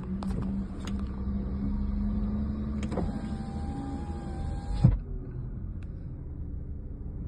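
BMW N46 four-cylinder petrol engine running steadily, with a few sharp clicks. About three seconds in, a whirring whine starts, lasts about two seconds and stops with a thump.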